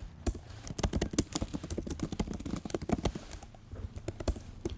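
Computer keyboard typing: an irregular run of quick keystroke clicks with short pauses between bursts.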